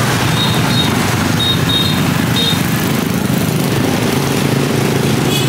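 A small engine running steadily close by, with a few short high chirps over it in the first half.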